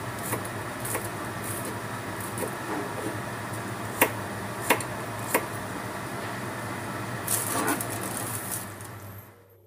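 Knife slicing garlic cloves on a thick wooden chopping block: light cutting taps, with three sharp knocks of the blade on the wood in the middle and a longer scrape near the end, over a steady background hum.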